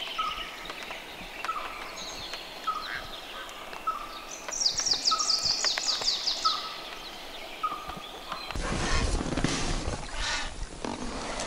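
Small birds singing: one repeats a short, simple note about once a second, while another gives a fast, high trill of falling notes around the middle. About eight seconds in, a louder, even rushing noise takes over.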